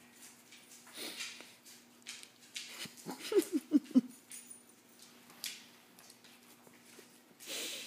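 Two dogs running and scrabbling around furniture, their paws padding and skidding in scattered short rustles. About three seconds in, a quick run of about five short dog calls, each falling in pitch, is the loudest sound.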